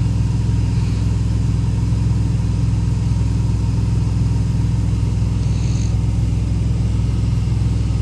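Car engine running steadily at idle, heard from inside the cabin, a low even hum with no revving.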